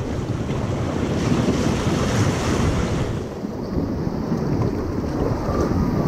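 Rushing white water of a river rapid churning around an inflatable raft, with wind and water buffeting the camera's microphone. The high hiss eases a little about three seconds in.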